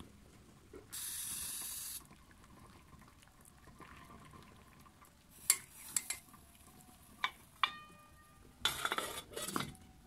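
Metal cooking pot and its lid being handled on a wood-burning cookstove top: several sharp clinks, one left ringing briefly, then a short rattling scrape near the end. A second-long hiss about a second in.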